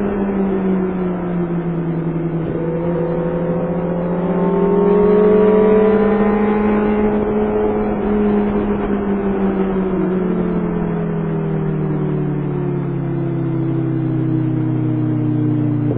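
Kawasaki Concours 14's inline-four engine running under way, heard from the rider's helmet. Its pitch dips early, climbs to a peak about five seconds in, then eases steadily lower over the last few seconds as engine speed falls off.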